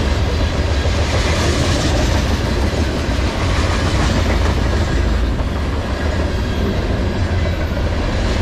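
Freight cars of a CSX mixed manifest train, tank cars and boxcars, rolling past on the track: a steady, loud noise of steel wheels running on the rails.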